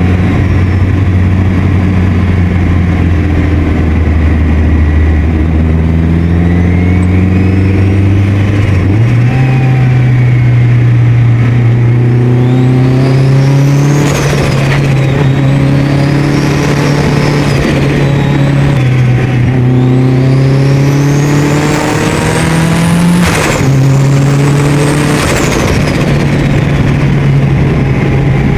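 Turbocharged Mitsubishi Lancer Evolution VIII 4G63 inline-four pulling hard under boost, with a high turbo whine rising as it accelerates. Sharp bursts about 14, 23 and 25 seconds in, as the whine peaks and falls, are the turbo's compressor-surge flutter on lifting off the throttle, made by the deleted blow-off valve.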